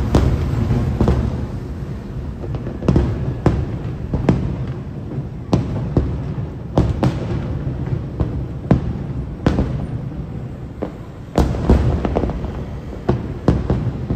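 Aerial firework shells bursting one after another, a sharp bang every second or so at uneven intervals, over a continuous low rumble.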